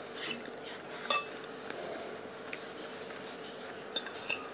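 A fork clinking and scraping against a dinner plate while eating: one sharp ringing clink about a second in, and a few more quick clinks near the end.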